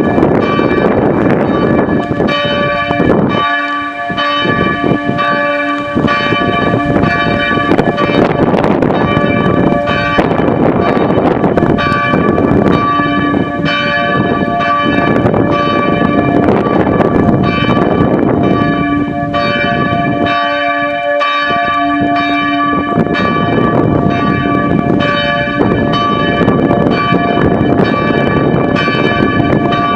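A peal of several church bells ringing together for noon, their strokes overlapping without a break.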